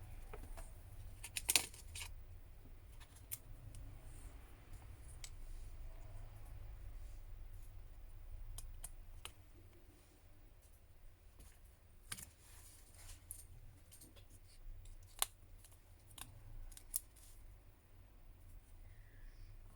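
Small, sharp, irregular clicks and taps of metal tools and plastic parts being handled while a smartphone is reassembled, with a few louder snaps scattered through, over a steady low hum.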